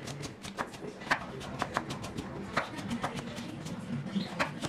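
Chef's knife dicing an apple on a wooden cutting board: a quick, irregular run of sharp taps, several a second, over soft background music.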